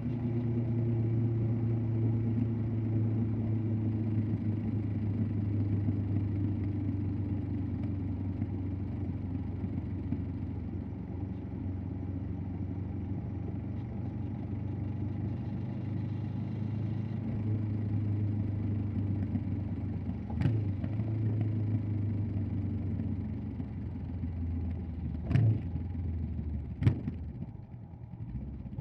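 Honda CB500X parallel-twin engine and exhaust running at a steady cruise, from the rider's seat. In the last third there are three short sharp clicks, and near the end the engine note drops away as the throttle eases off.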